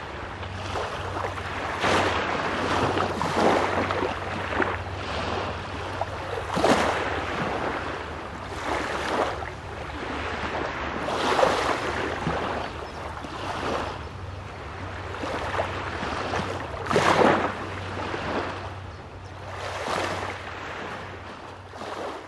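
Small Baltic Sea waves breaking and washing onto the shore, one surge every two or three seconds, over a steady low rumble.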